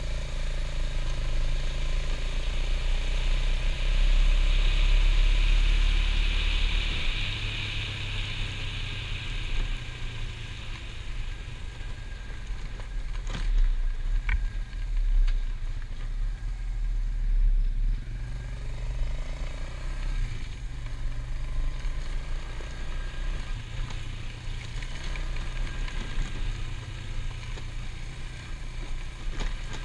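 ATV engine running with a steady low drone, with a hissing noise building and fading over the first ten seconds and a couple of sharp clicks about halfway through.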